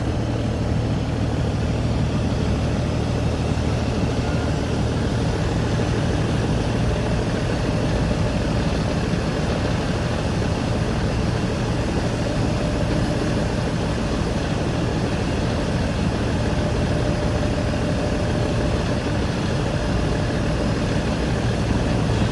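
Barge diesel engine running steadily with a low, even drone.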